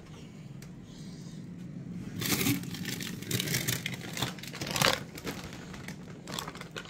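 Frozen-food packaging rustling and crinkling, with knocks, as things are moved about in a freezer. The noise starts about two seconds in and is loudest through the middle.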